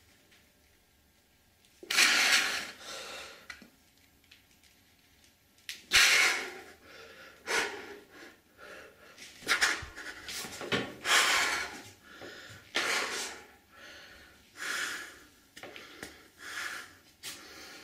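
A man breathing hard, with short, forceful hissed exhalations every one to two seconds, starting about two seconds in. These are the sharp breaths of punching while shadowboxing.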